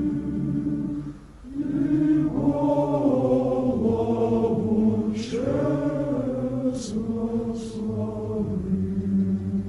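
A choir chanting in slow, sustained notes over a low held drone, with a brief dip about a second in and a few soft sung consonants later on.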